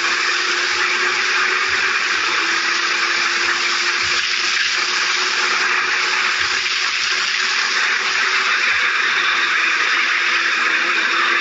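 Loud, steady rush of wind over the microphone of a Kawasaki Z750 ridden at speed, with the bike's inline-four engine holding a steady high-revving note underneath.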